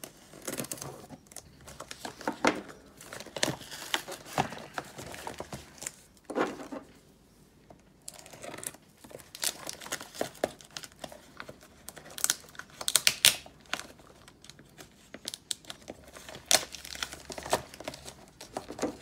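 Packing tape and wrapping being torn and pulled off shipped boxes, with irregular crinkling and crackling. There is a short pause about seven seconds in, and the loudest crackles come around twelve to thirteen seconds.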